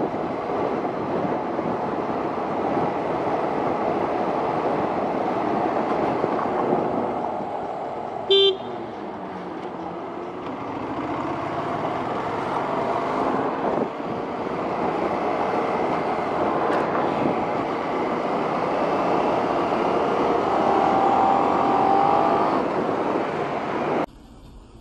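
Motorcycle running at road speed in traffic, its engine mixed with steady wind rush. A short horn beep sounds about eight seconds in.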